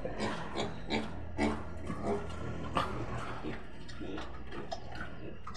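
A sow eating from a concrete trough: irregular short chomping and snuffling sounds as she feeds.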